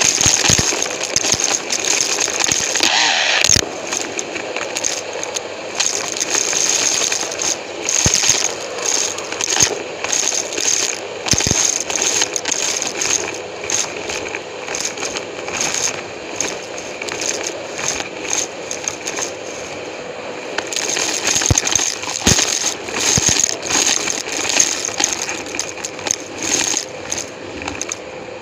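Numatic James vacuum cleaner running close to the microphone, a steady whine under constant rattling, crackling clicks of debris being sucked through.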